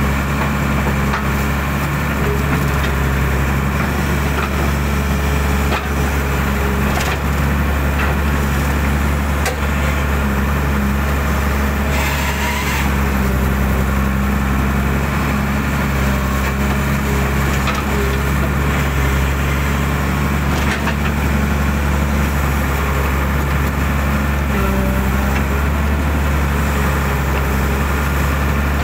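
Hydraulic excavator's diesel engine running steadily under load while it digs out a drainage ditch. Occasional sharp cracks and knocks sound over it.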